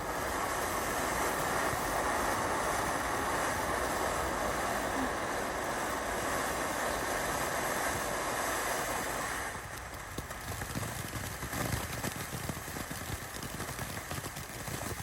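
A firework spewing sparks with a steady, loud hiss that starts abruptly and lasts about nine seconds, then dies down to softer crackling.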